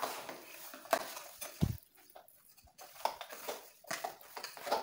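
Raw chicken pieces being mixed by hand with spices and oil in a metal bowl: irregular soft knocks and wet handling sounds against the bowl, with a dull thump about one and a half seconds in.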